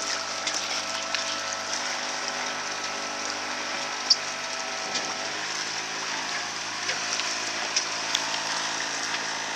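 A sailboat's engine running at a steady speed while motoring, giving an even hum under a rushing hiss of water and wind. A sharp click sounds about four seconds in, with a couple of fainter ones near the end.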